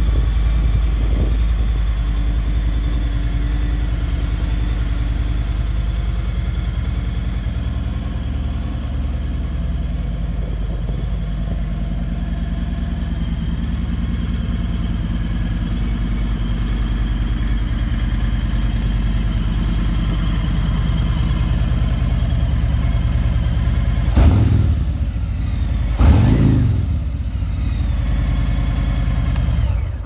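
Harley-Davidson Road Glide Special's V-twin engine idling steadily through Vance & Hines slip-on mufflers, with two quick throttle blips near the end, the revs rising and falling back each time.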